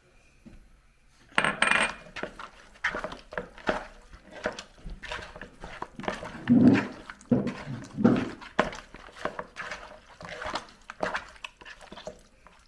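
Irregular clinks and knocks of a utensil against a bowl as chicken wings are mixed with jerk seasoning, with a few heavier knocks near the middle.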